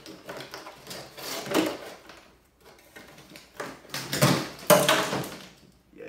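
Orange mold piece being worked loose and pulled off a freshly cast perlite-and-sand concrete hive box. It scrapes and rubs against the concrete in several spells, the loudest about four to five seconds in. Crumbly mix comes loose and falls.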